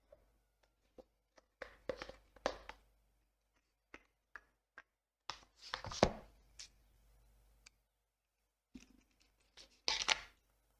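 Hands handling a phone box and its packaging: scattered light taps and clicks with short rustles, bunched in three little clusters, with near silence between them.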